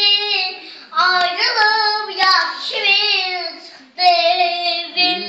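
A four-year-old girl singing unaccompanied, in three phrases with short breaths about a second in and about four seconds in.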